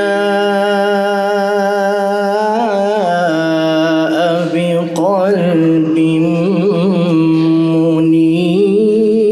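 A man reciting the Quran in the melodic tajweed style, holding a long steady note that breaks into wavering vocal ornaments about two and a half seconds in. He sings the word 'bi-qalbin' about six seconds in, then holds another long note.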